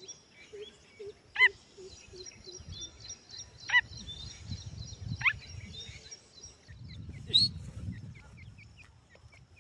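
Young grey francolin (desi teetar) giving short, sharp calls, four of them a couple of seconds apart, the last the loudest. Faint high chirps twitter throughout.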